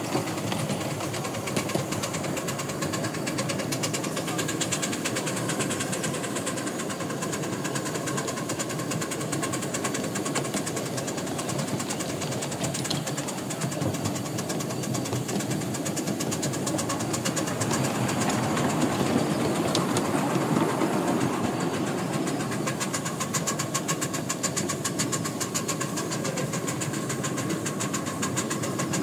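Miniature live-steam locomotive running with a train, heard from the driving truck just behind it: a steady run of rapid beats from the exhaust and the wheels on the rails, with steam blowing out low by the cylinders, a little louder about two-thirds of the way in.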